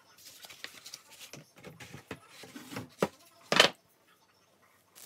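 Laptop packaging being handled by hand: irregular rustling of plastic wrap and packing material, a sharp tap about three seconds in and a louder brief noise half a second later.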